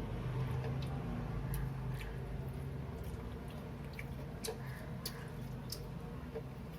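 A person chewing food, with several short, sharp mouth clicks scattered through, over a steady low hum.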